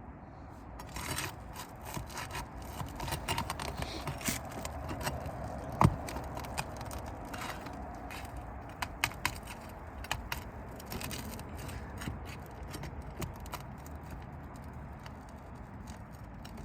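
Scraping and clicking of a tool working nails out of asphalt roof shingles, with one sharp knock about six seconds in.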